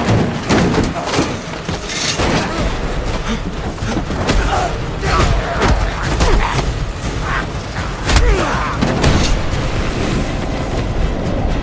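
Dense film action sound mix: repeated booms and crashes over a heavy low rumble of a sandstorm and car engines, with music underneath.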